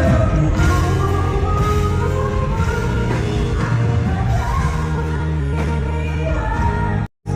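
Live pop music: a woman singing with a band accompanying her. The sound drops out completely for a moment near the end.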